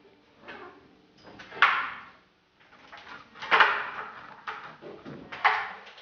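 Soft 5B graphite pencil scratching across drawing paper in sketching strokes while an outline is laid in. Three louder strokes come about two seconds apart, each starting sharply and fading over about half a second, with lighter strokes between them.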